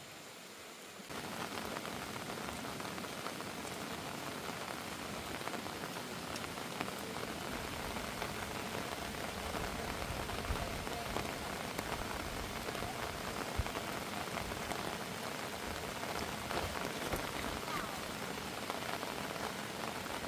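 Heavy rain falling steadily, pattering on surfaces with scattered drop ticks. It starts abruptly about a second in.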